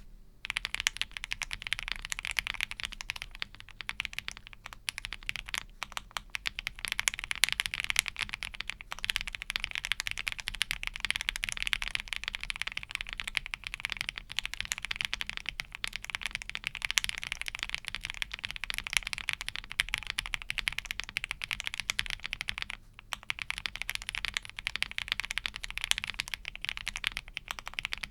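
Mechanical keyboard with Akko CS Air linear switches being typed on quickly, a steady stream of key clacks with a short pause about 23 seconds in.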